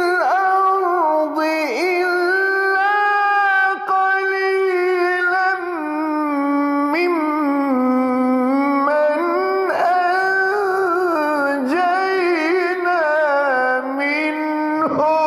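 A man's solo voice in melodic Quran recitation (tajweed): long held notes with wavering ornaments, set high in his range at first and sinking lower about halfway through.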